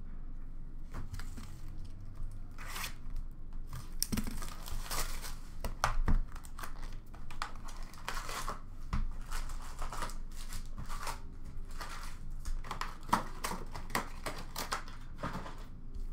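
Upper Deck hockey card packs being torn open by hand, the wrapper ripped and crinkled, with cards handled in between. A run of short, irregular tearing and rustling sounds, loudest about six seconds in.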